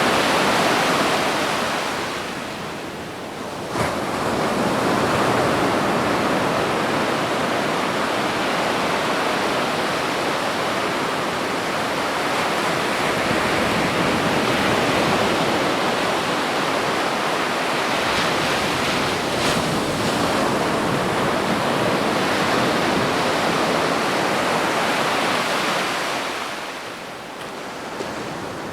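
Ocean surf washing on a beach in a steady wash of noise. It eases briefly a few seconds in and again near the end, like the lull between breaking waves, with a small click after the first lull.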